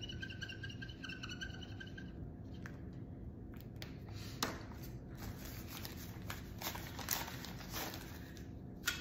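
Paper banknotes rustling and crinkling in the hands as they are pulled out and counted, with light handling clicks, busiest in the second half. A faint steady high tone fades out about two seconds in.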